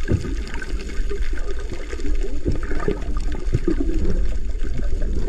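Underwater water noise during a night dive: a steady deep rushing of water with dense crackling and bubbling over it.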